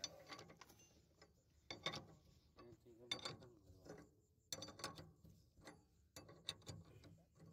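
Steel ring spanner clinking and clicking on a nut as it is turned and re-seated, tightening the bell crank bearing's bolt: faint, irregular metal clicks in small clusters every second or so.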